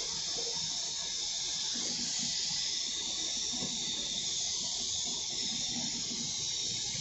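Compressed-air gravity-feed spray gun hissing steadily as it sprays paint onto a car body panel.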